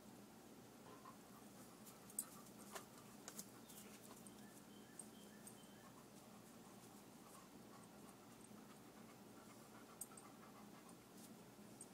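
Near silence: a golden retriever faintly panting and sniffing, with a handful of soft clicks, the sharpest about two seconds in.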